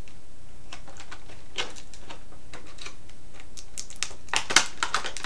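Scattered clicks and taps of a hard plastic toy figure being handled, with a cluster of sharper clicks about four seconds in.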